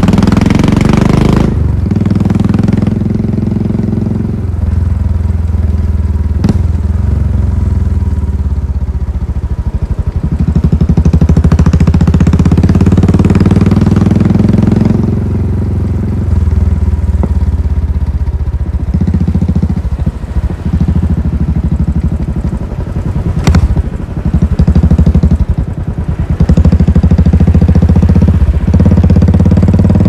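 Royal Enfield Classic 500's single-cylinder engine and exhaust heard from the rider's seat while under way, the beat swelling and dropping every few seconds as the throttle opens and closes. A sharp click comes about two-thirds of the way through.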